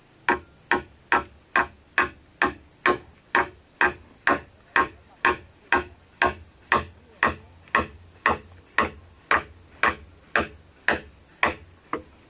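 Regular sharp clicks, about two a second at an even pace, stopping shortly before the end.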